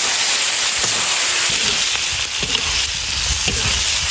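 Cut pork intestines sizzling in hot chilli oil in a wok, a steady hiss. From about two seconds in, a metal spatula knocks and scrapes against the wok as the intestines are stir-fried.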